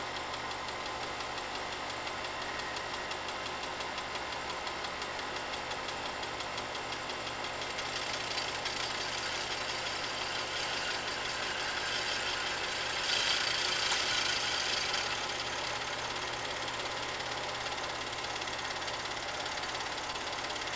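8mm film projector running, a steady rapid clatter of the film advance mechanism under motor hum and hiss. It grows brighter and a little louder between about 8 and 15 seconds in.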